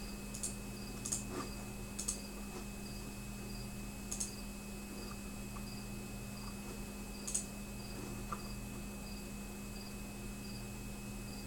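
Occasional sharp clicks of a computer keyboard, scattered a second or more apart, over a steady electrical hum. A faint high chirp repeats about every two-thirds of a second.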